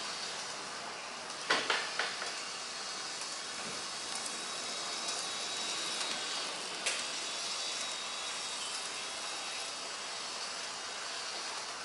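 HO-scale model railcar (Hobbytrain KLV12) running on its track: a steady whirring hiss with a faint high whine, broken by a quick cluster of sharp clicks about a second and a half in and one more click near the middle.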